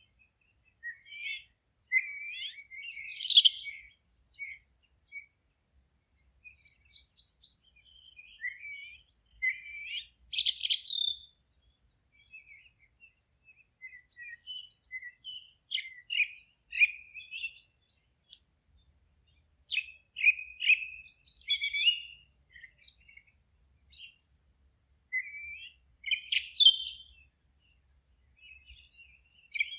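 Wild songbirds singing in short, varied chirps and trilled phrases, with brief pauses between them.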